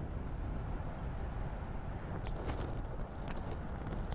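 Wind buffeting the microphone of a moving vehicle, over a steady low rumble of road and engine noise, with a few light ticks about two and three seconds in.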